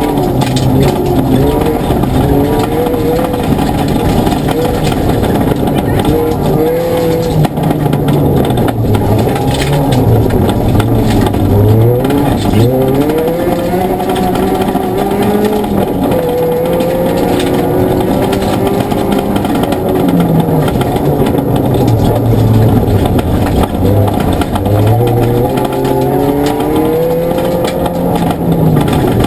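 Ford Fiesta ST rally car's four-cylinder engine heard from inside the cabin, revving hard and dropping again and again through the gears at stage pace. Over it run gravel and road noise, with scattered knocks from stones.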